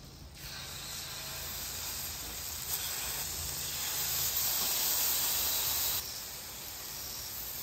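Mayonnaise-coated raw chicken breasts sizzling as they are laid on a hot flat-top griddle with no oil. The sizzle starts about half a second in, builds as more pieces go down, and eases back a little about six seconds in.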